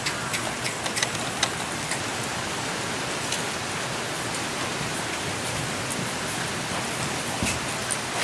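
A steady rushing hiss, with a few light clicks in the first couple of seconds.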